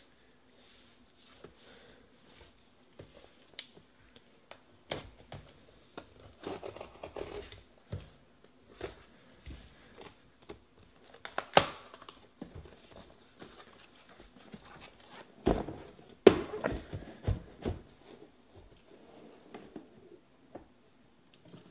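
Cardboard shipping case being opened and handled: tape and cardboard tearing and rustling, with several sharp knocks and thumps as the case is moved. The loudest knocks come about halfway through and again around three quarters of the way in.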